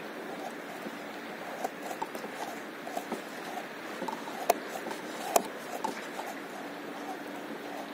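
Small ripples lapping against the side of an inflatable paddleboard: a steady wash of water with irregular little slaps and ticks, and two sharper clicks about a second apart near the middle.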